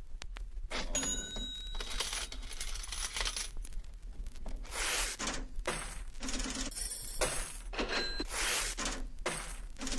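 Bright metallic jingling and chiming in repeated shakes, with a few short ringing tones, over a steady low hum.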